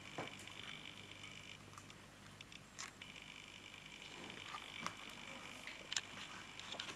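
Faint handling of a hardcover picture book: scattered soft rustles and a few light clicks and taps of paper and cover as the open book is moved about and a page is turned, the sharpest click about six seconds in. A faint steady high hum runs underneath, dropping out for about a second in the middle.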